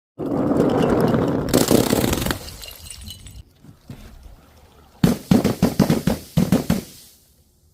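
Crunching and crackling of things being crushed or broken, in two bursts: a dense one for the first two seconds, and a quick run of sharp crackles from about five seconds in.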